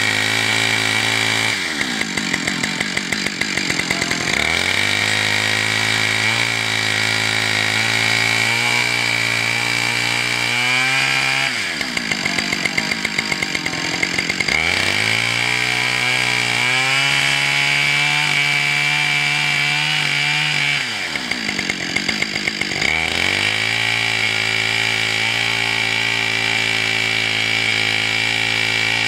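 Two-stroke chainsaw ripping lengthwise through a log, held at full throttle under load. The engine eases off three times, about two seconds in, around eleven seconds and around twenty-one seconds, and revs back up a couple of seconds later each time.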